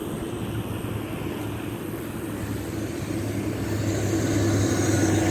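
Road traffic: a passing motor vehicle's steady engine hum and tyre noise, growing louder in the second half as it approaches.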